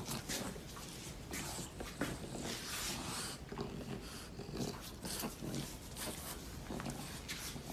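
English bulldog puppy breathing noisily and snuffling in irregular bursts while being held and handled by a chimpanzee.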